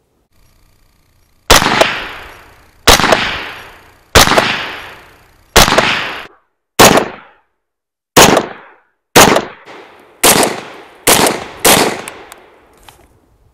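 Taurus CT9G2 9mm carbine fired ten times in steady semi-automatic shots, emptying its ten-round magazine. Each sharp crack rings off into a fading tail. The shots come about a second and a half apart at first and quicken to less than a second apart near the end.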